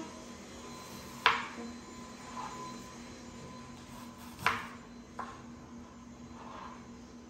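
Kitchen clatter: three sharp knocks of hard kitchenware on the counter, about a second in and twice more around four and a half to five seconds in, each with a brief ring, over a faint steady hum.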